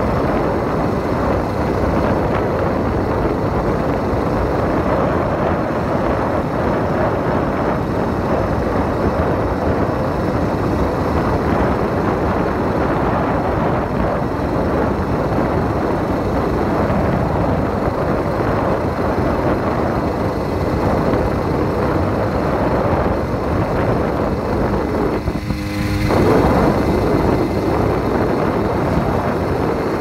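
80cc bike's engine running steadily under way on the road. About four seconds before the end the sound briefly changes and gets a little louder.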